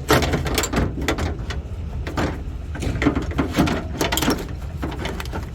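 Irregular clicking, knocking and scraping of metal and plastic parts being worked loose inside a car door, as the door lock actuator and latch are wrestled out of the door cavity.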